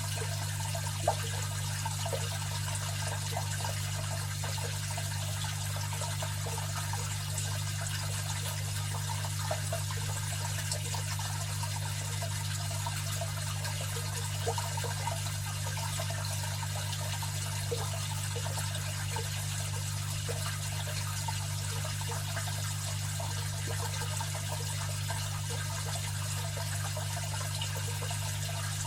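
Aquarium filter running: a continuous trickle and splash of water falling back into the tank over the filter motor's steady low hum.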